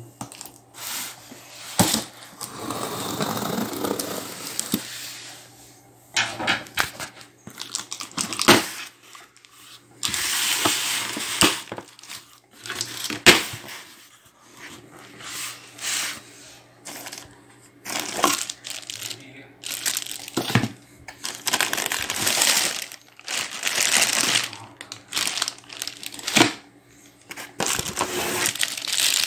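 Cardboard box being opened by hand: packing tape slit with a screwdriver and torn, cardboard flaps scraping and rustling, and plastic wrapping crinkling. The noise comes in irregular bursts with a few sharp knocks.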